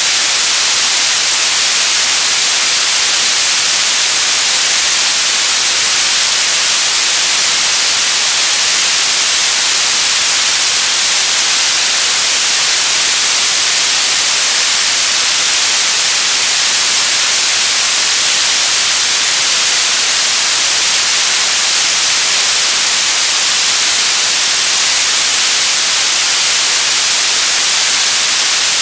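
Radio static: a loud, steady hiss, brightest in the high frequencies, that does not change.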